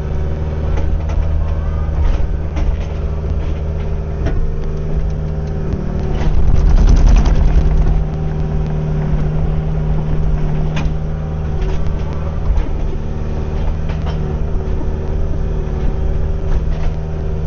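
Kubota U55-4 mini excavator's diesel engine running steadily under work, rising in loudness for a couple of seconds around the middle, with scattered clanks and knocks from the machine as it digs.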